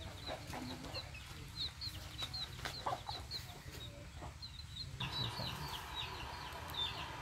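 Chicks peeping, short high cheeps repeating several times a second, with a few sharp clicks among them. A steady hiss joins suddenly about five seconds in.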